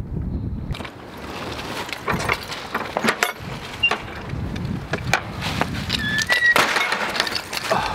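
Low wind rumble, then, about a second in, a run of clattering knocks and footsteps on loose slate as a metal field gate is worked and walked through, with a short squeak about six seconds in.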